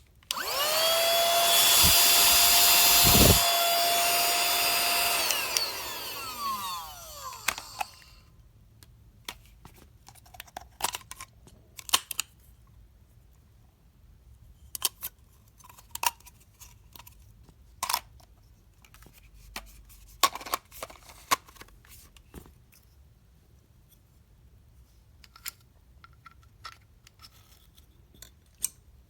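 Cordless handheld car vacuum's small high-speed motor switched on, spinning up to a steady high whine. It steps down in level twice, then is switched off about five seconds in and winds down with a falling whine. Scattered clicks and taps from handling the plastic unit follow.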